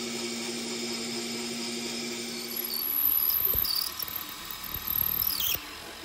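Metal lathe running steadily while boring an aluminium part. From about halfway there is a louder cutting sound from machining aluminium, with high-pitched squeals near the end.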